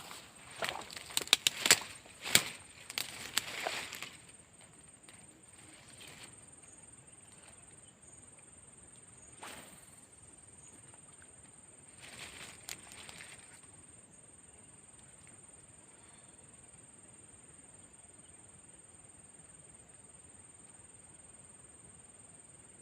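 A steady, thin, high-pitched insect drone over the swamp, with a quick flurry of sharp clicks and rustling handling knocks in the first few seconds and a few fainter clicks about halfway through.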